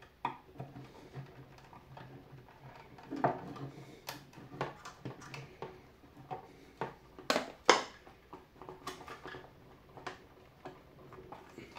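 Small flat screwdriver and fingers working at the black plastic housing of a De'Longhi Special.T machine to push out its rubber button: scattered light clicks, taps and scrapes of plastic, with a few sharper knocks about three and seven and a half seconds in.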